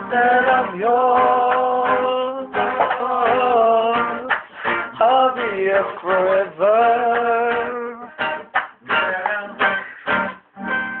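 A man singing with held, sliding notes over a strummed acoustic string instrument in an informal jam.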